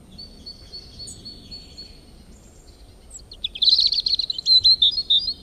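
Songbirds singing: a row of evenly spaced high notes for about two seconds, then a louder, rapid run of chirps in the last two seconds.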